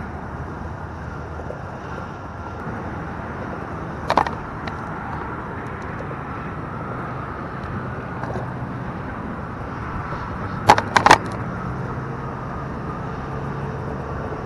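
Steady hum of road traffic from a nearby freeway. A single sharp knock comes about four seconds in, and a quick run of three knocks comes about eleven seconds in.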